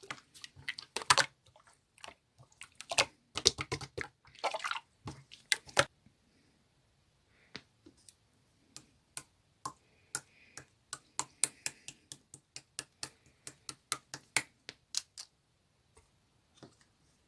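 Clear slime being worked by hand: a dense run of wet, sticky pops and clicks for about six seconds, then sparser single clicks.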